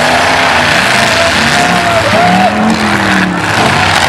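Several demolition derby cars' engines revving hard together, their pitch rising and falling, with a car's wheels spinning in the dirt.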